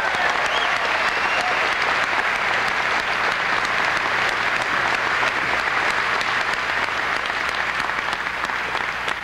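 Audience applauding, a large hall full of people clapping steadily, easing off near the end.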